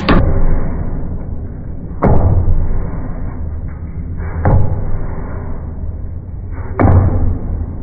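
Heavy machine impacts repeating about every two and a half seconds, four strikes in all, each with a short ringing tail, over a steady low machine hum.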